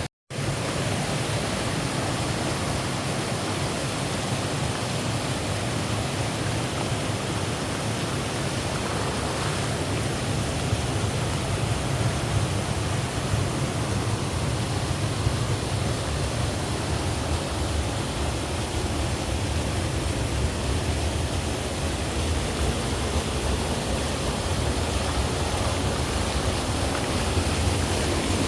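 Rushing water, a steady, even rush that barely changes. The sound drops out for a split second right at the start.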